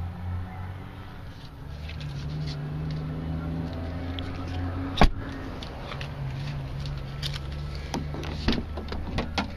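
Steady low hum inside a pickup truck's cab, with one sharp click about halfway through and several smaller clicks and knocks near the end.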